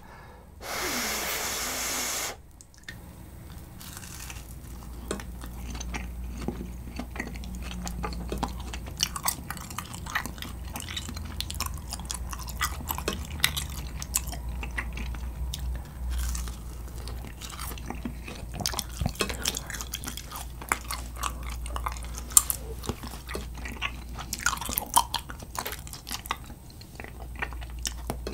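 Close-miked chewing of grilled kirimochi rice cake glazed with soy sauce, a dense run of sharp, crunchy clicks and wet mouth sounds. A loud breathy rush comes about a second in, before the chewing settles in.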